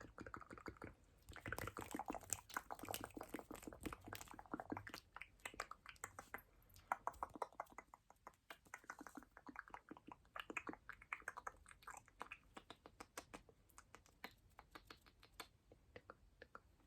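Close-miked ASMR mouth sounds: rapid, irregular wet clicks and smacks, with soft breathy noise between them.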